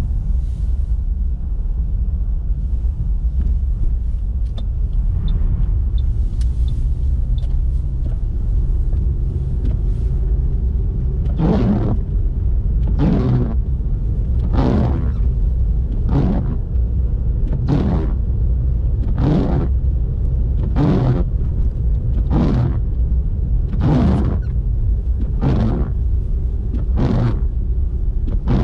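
Car cabin with a steady low rumble of the engine and tyres on the road. From about a third of the way in, the windscreen wipers start sweeping, a swish about every one and a half seconds, eleven times.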